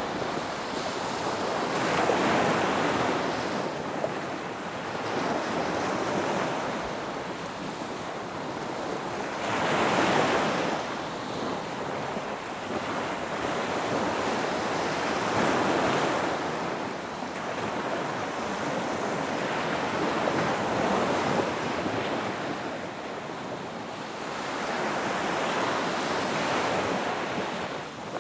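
Ocean surf breaking on a beach, a steady wash of noise that swells with each wave and fades back, the surges coming about every five to eight seconds.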